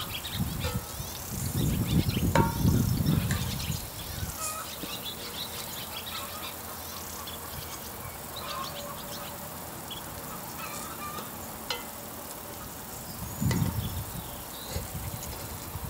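Outdoor ambience with many small bird or insect chirps and two spells of low rumbling, the longer one a couple of seconds in and a short one near the end. A sharp metal clink about two seconds in, as a utensil touches the cast-iron Dutch oven.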